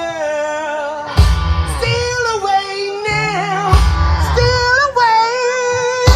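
A classic rock band playing live, with a singer holding long notes with vibrato over guitar, bass and drums. The full band drops back and then comes in hard about a second in, and again a little after three seconds.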